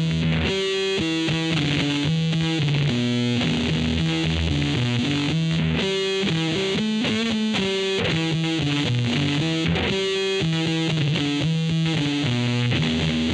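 Distorted electric guitar from a Jazzblaster-converted Fender Jazzmaster HS Blacktop, played through effects as a continuous riff of picked notes, with a phrase that appears to repeat.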